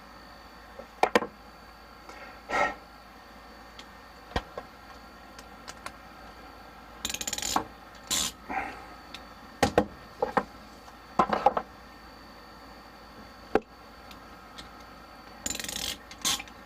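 PEX plumbing fittings and tools being handled and fitted together: scattered clicks and knocks of small hard parts, with two short rasping noises, one about seven seconds in and one near the end.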